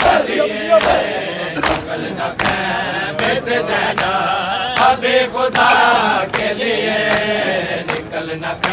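A crowd of Shia mourners chanting together during matam, with the slap of hands striking bare chests in unison, about one beat every 0.8 seconds.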